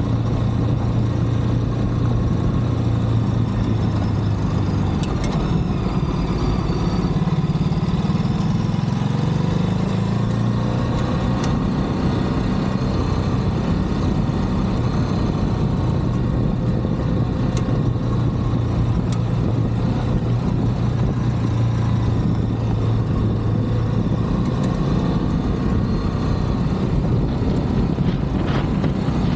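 Ducati DesertX's 937 cc L-twin engine running at a steady cruise, its note dipping and climbing back between about five and ten seconds in.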